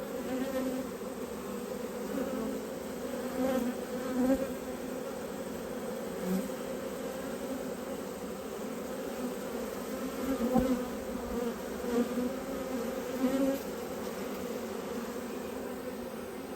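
Honeybees buzzing in the air around an open hive: a steady hum, with single bees now and then buzzing louder as they fly close past. The colony is one the beekeeper calls flighty and a bit cranky.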